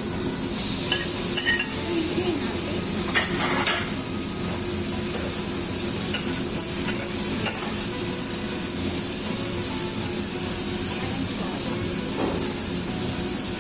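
Food frying in a hot wok with a steady sizzle, stirred with a metal utensil that clatters against the pan a few times, most clearly about three seconds in.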